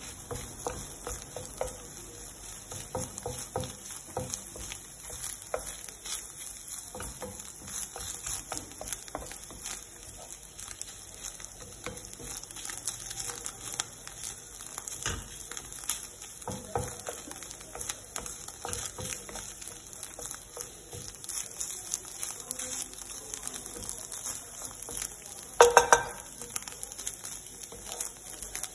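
Wooden spatula stirring and scraping scrambled eggs in a nonstick frying pan, with many light clicks over a faint steady sizzle. A brief, loud ringing knock comes near the end.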